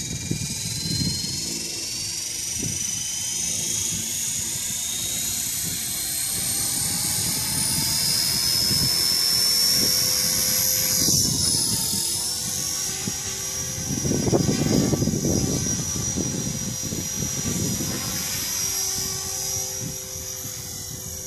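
Small radio-controlled model airplane's motor and propeller whining at a high pitch, the pitch rising and shifting as it throttles up, rolls off the mat and climbs away. Low gusts of wind noise on the microphone swell over it about two-thirds of the way through.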